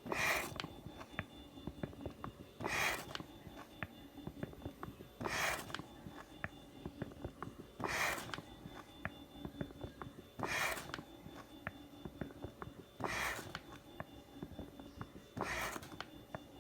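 Homemade mechanical ventilator cycling: a short rush of air about every two and a half seconds, seven in all, over a steady faint hum with light clicking between the breaths.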